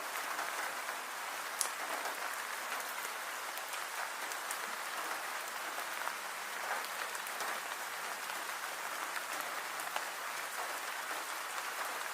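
Steady rain-like hiss with scattered light patters and ticks.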